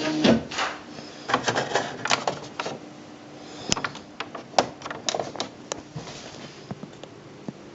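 Smith Corona PWP 3600 electronic typewriter at work: its print mechanism runs briefly and stops about half a second in, followed by scattered, irregular clicks and knocks from the machine.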